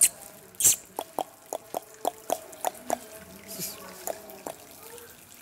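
Dog lapping water: a run of short wet plinks, about three or four a second, after one sharp splashy burst near the start.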